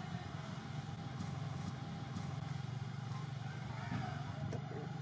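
A steady low hum of a motor engine running.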